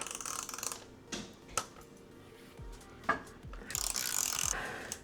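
Hands and tools working on a bicycle: scattered clicks and knocks, a sharp click about three seconds in, and a rasping, ratchet-like whirr for about a second near the end.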